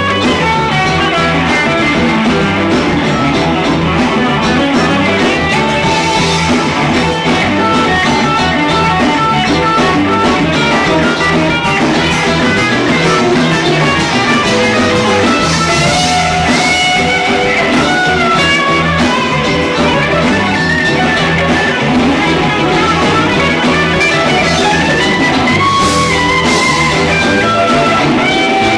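Live rock band playing loudly: electric guitars carrying sustained, bending melodic lines over bass guitar and drum kit.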